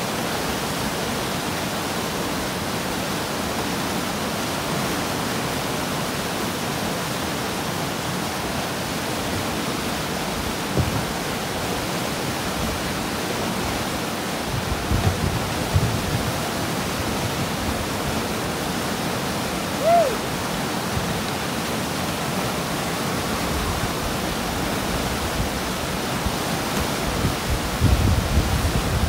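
Continuous rushing of river whitewater pouring through a standing wave rapid. A few low bumps come in the second half, and there is one short chirp-like note about two-thirds of the way through.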